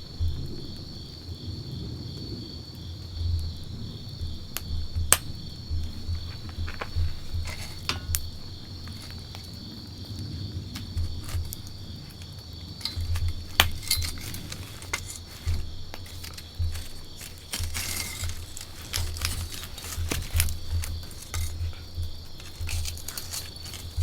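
Wood campfire crackling, with occasional sharp pops and snaps over a low fluttering rumble of the flames.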